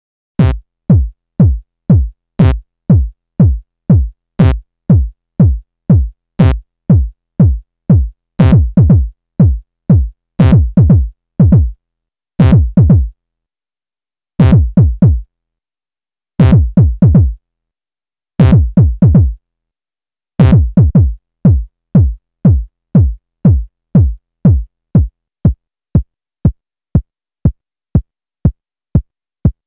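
KORG iMS-20 synthesizer sequencer playing a repeating electronic kick-drum pattern: short, deep thumps that drop in pitch, about two to three a second, with a sharp click every two seconds. In the middle the hits bunch into groups with brief gaps, and near the end they run evenly and softer.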